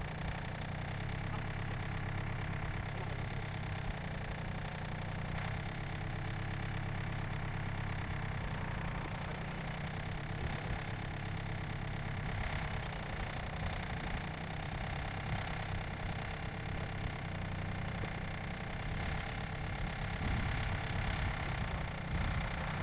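Compact tractor's engine idling steadily.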